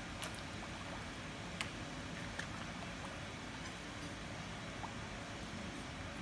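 A crowd of koi thrashing and gulping at the pond surface: steady watery splashing with a few small sharp splashes.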